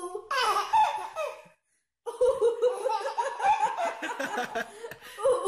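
Baby laughing: a first burst of high-pitched laughter, a brief pause about a second and a half in, then a long run of rhythmic giggling.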